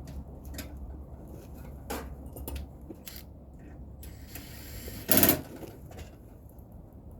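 Hand work on an air-conditioner outdoor unit: scattered clicks and light knocks of tools and parts being handled, with a short, much louder clatter about five seconds in.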